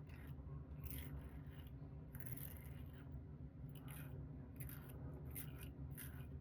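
Safety razor blade cutting through lathered chin stubble in a series of short, faint scraping strokes, about one or two a second.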